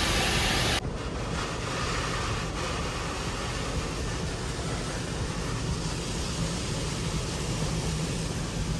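Touchless car wash spraying high-pressure water over the car, heard from inside the cabin as a loud steady hiss. It cuts off abruptly about a second in, leaving a softer steady rushing with a low hum.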